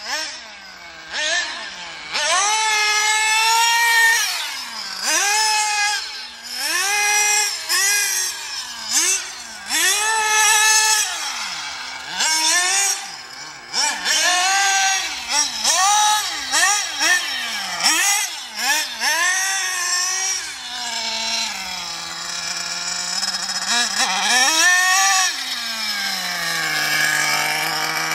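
Small two-stroke nitro glow engine of a 1:8-scale Carson Specter RC car, revving up and down over and over as it is driven, about once every second or two. Near the end it runs lower and steadier for several seconds before revving up again.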